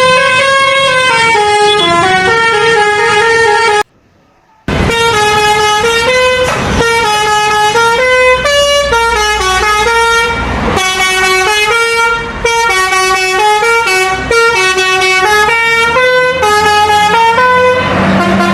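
Indonesian bus 'telolet basuri' musical horn playing a loud tune, its notes stepping up and down. It breaks off for about a second around four seconds in, then carries on with the melody.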